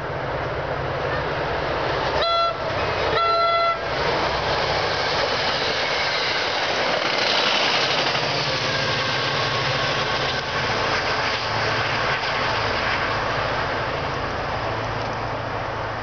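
EMD GP40PH-2B diesel locomotive sounding its multi-chime horn twice, a short blast then a longer one, about two seconds in. The train then passes close by, with the steady noise of the engine and the passenger cars rolling over the rails.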